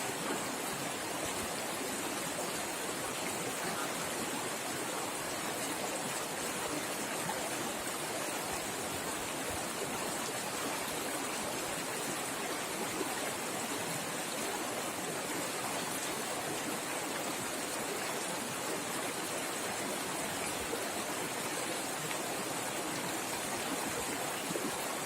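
Swift river water rushing over its bed: a steady, even rushing noise with no breaks.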